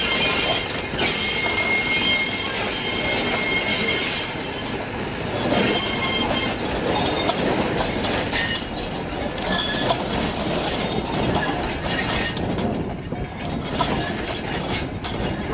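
Rail vehicle rolling along track, its steel wheels squealing in high steady tones for the first few seconds, then a rumbling clatter with scattered clicks.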